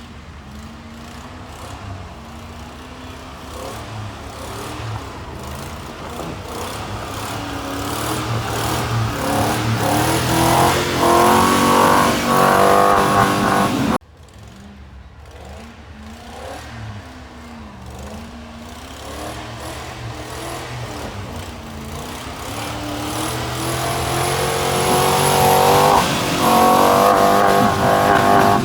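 Pickup truck engine revving and pulling through deep snow, its pitch rising and falling as it works, getting steadily louder. It cuts off sharply about halfway, and the same build-up then plays again.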